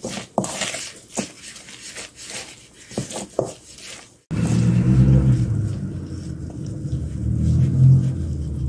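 Wooden spoon stirring and scraping chilli-seasoned vegetables in a stainless steel mixing bowl, with irregular clicks and scrapes against the metal. About four seconds in this stops abruptly and a loud, steady low drone takes over.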